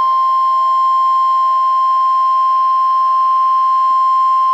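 NOAA Weather Radio 1050 Hz warning alarm tone: a single loud, steady high-pitched beep held without a break, the signal that a warning message is about to follow.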